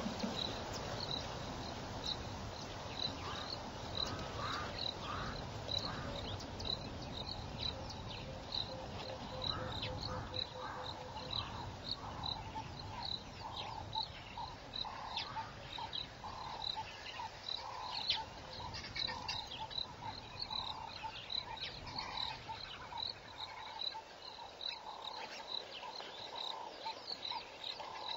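Outdoor animal chorus: a high chirp repeats about twice a second throughout, and a lower, rounder call repeats from about twelve seconds in until about twenty-four seconds in. A low rumble sits under the first ten seconds or so.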